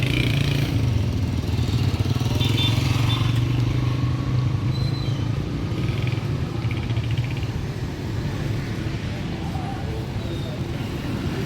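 A motor vehicle's engine running steadily with a low drone, easing a little after about eight seconds, with faint voices of a busy street behind it.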